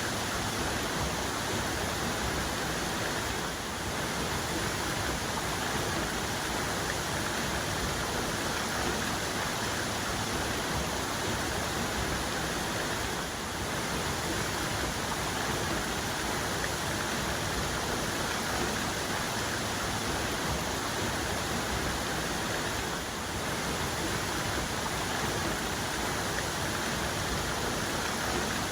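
Waterfall's main cascade pouring: a steady, unbroken rush of falling water.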